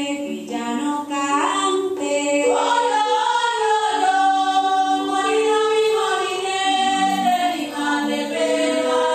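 Afro-Colombian Pacific-coast song sung in chorus by several voices, with long held notes that slide between pitches.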